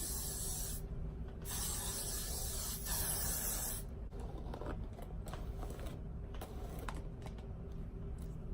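Got2b aerosol hairspray being sprayed onto hair in two hissing bursts: a short one ending about a second in, then a longer one of about two and a half seconds. Faint rustling and light clicks follow.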